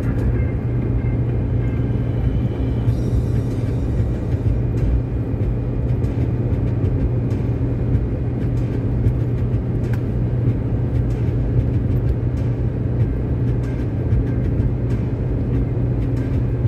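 Steady low drone of a car's engine and tyres on asphalt, heard from inside the cabin while cruising at highway speed.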